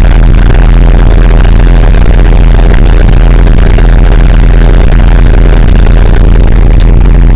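Loud, steady electrical mains hum with a buzzing row of overtones and hiss, on the audio line of a sewer inspection camera system. There is a faint click about three seconds in and another near the end.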